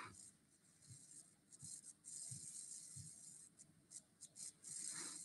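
Faint scratching of a coloured pencil shading on drawing paper.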